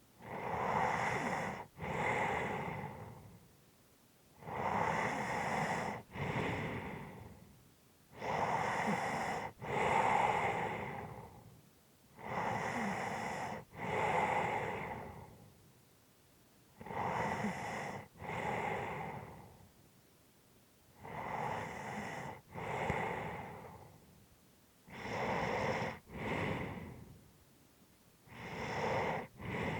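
A person's slow, heavy breathing during sleep: each breath is a loud in-breath followed at once by an out-breath, repeating steadily about every four seconds.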